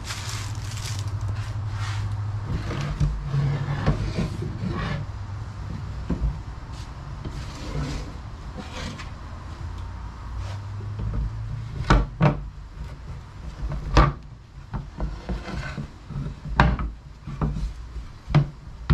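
A plywood sheet being handled on a workbench: wood rubbing and scraping, then sharp wooden knocks several times in the second half as the sheet is shifted and lifted.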